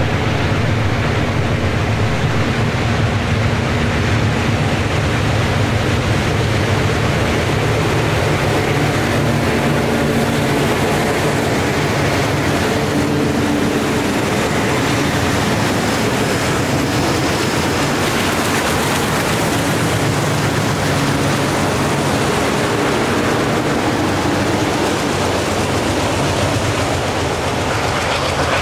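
A Delaware-Lackawanna freight train's Alco diesel locomotives run loud as they pass close by, their engines a steady low drone. After them come covered hopper cars rolling over the rails, and the sound eases a little near the end.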